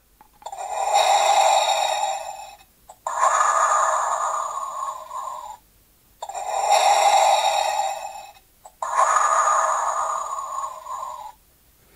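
Funko Pop! Darth Vader Light & Sound figure playing Darth Vader's mechanical respirator breathing through its built-in speaker. It plays two in-and-out breath cycles, four breaths of about two and a half seconds each, with short pauses between.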